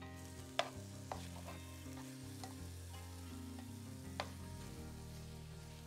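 Food sizzling in a cooking pan as it is stirred, with a few sharp clicks of the utensil against the pan, the loudest about half a second in and again about four seconds in. Soft background music with held notes runs underneath.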